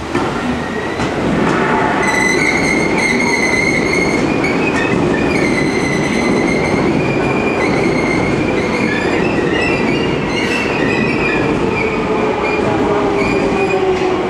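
Seibu 2000 series electric train running slowly with a rumble and a high, wavering wheel squeal, typical of flanges grinding through curved track and points during a shunting move. A faint tone sinks slowly in pitch near the end.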